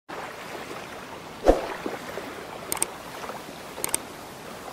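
Intro sound effects: a steady water-like wash with one loud splash-like thump about a third of the way in. Later come two pairs of short, high clicks, like a mouse clicking a subscribe button.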